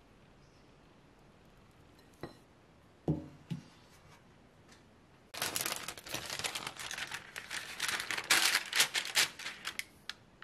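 Baking paper crinkling and rustling as it is pressed into a metal baking tin, starting about five seconds in and running for some five seconds. Before it, about three seconds in, come two short dull knocks.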